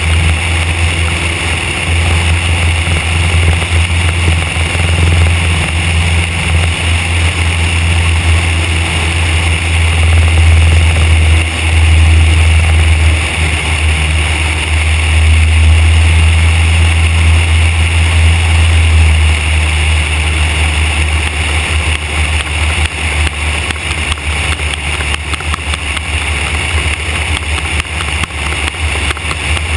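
Van's RV-4 light aircraft's piston engine and propeller droning steadily in flight, with wind rushing over the belly-mounted microphone. The drone is a little louder in the middle and eases off in the last third.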